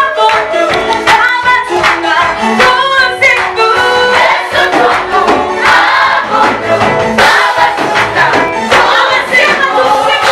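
A choir singing a gospel praise song with instrumental backing and a steady beat.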